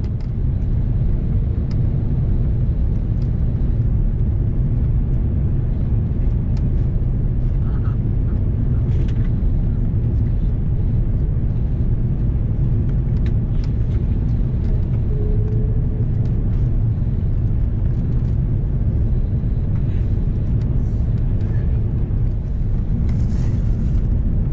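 Steady low rumble of an Airbus A330-300's cabin in flight on approach: engine and airflow noise, with a few faint ticks and rattles.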